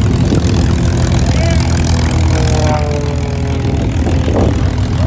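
Propeller aircraft engine running steadily at low revs, with wind buffeting the microphone.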